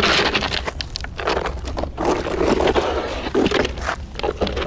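Gravel crunching and scraping as Race Ramps car ramps are handled and set down on the ground beside a trailer, with a few sharp knocks in an irregular run of noise.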